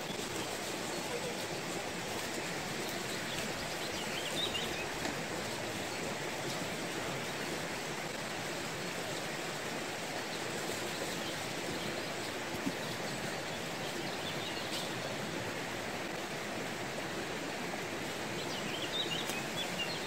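Steady rushing of a forest stream, with a bird chirping briefly twice.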